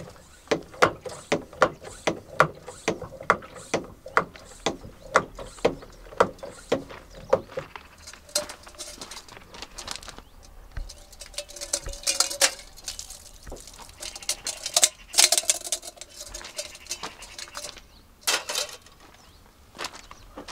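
Camp cooking utensils: a run of quick regular knocks, about two to three a second, for the first eight seconds, then irregular scraping and clinking.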